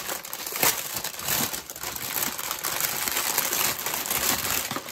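Clear plastic packaging bag crinkling as it is handled and pulled open: a dense, continuous run of crackles and rustles, very crinkly.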